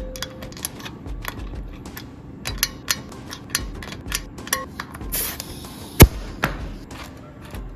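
Hand work on a dirt-bike wheel and tyre: a run of light clicks and knocks, a brief hiss about five seconds in, and one sharp knock just after.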